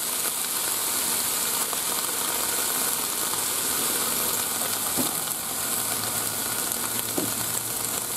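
Sliced onions, mushrooms and green peppers sizzling steadily on the hot steel top of a Blackstone flat-top griddle, with the hiss of sprayed water turning to steam.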